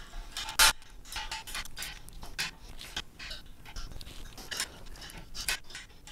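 Irregular clicks and scrapes of a hex driver turning fasteners on aluminium T-slot extrusion, with one sharp click about two-thirds of a second in standing out above the rest.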